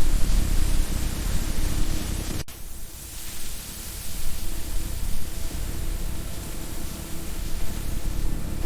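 Steady hiss-like noise over a low rumble, with a faint steady hum. It breaks off sharply about two and a half seconds in and comes back quieter for a moment.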